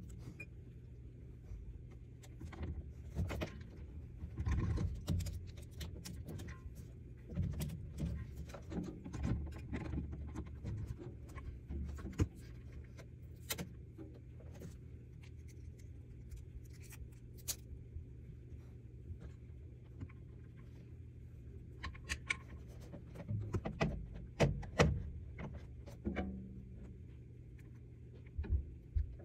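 Scattered clicks, clinks and knocks of objects being handled, over a steady low hum, with a busier cluster of knocks about three quarters of the way in.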